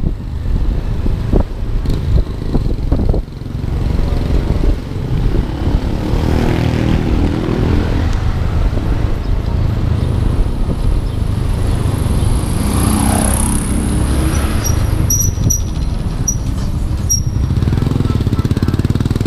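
Ride on a Honda scooter: a steady low engine rumble with wind noise on the camera, and engine pitch rising and falling twice as the motorcycle tricycle just ahead and the scooter change speed. A thin high whine joins about halfway through.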